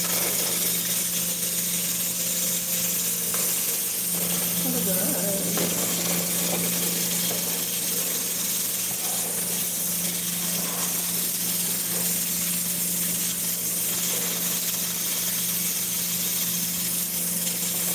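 Steady hiss and low hum of a pot cooking on a lit gas stove burner, with a spoon stirring in the metal pot.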